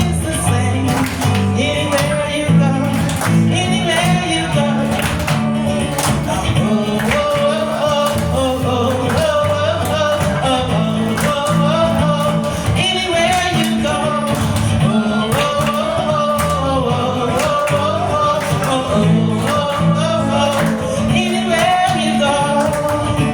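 Live band playing a song: bass, drums and guitar under a wavering sung melody.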